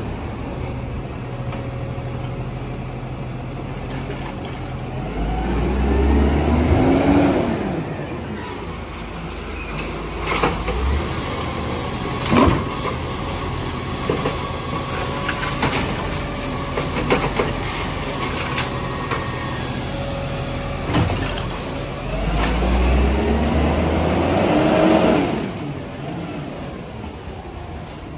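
Isuzu side-loader garbage truck running, its engine revving up for a few seconds as the hydraulic arm lifts a wheelie bin. Then comes a run of sharp knocks and bangs as the bin is tipped and shaken into the hopper, and a second rev about three-quarters of the way through.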